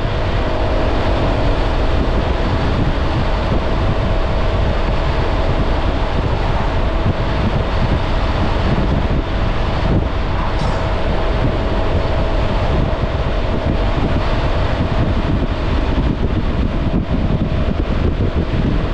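Honda ADV 350 scooter's single-cylinder engine running at a steady cruise, under heavy wind buffeting on the microphone and road noise, with a faint steady tone throughout.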